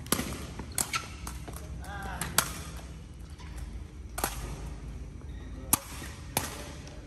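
A sepak takraw ball being kicked: six or seven sharp strikes at irregular spacing, each echoing in a large hall. A short shout comes about two seconds in.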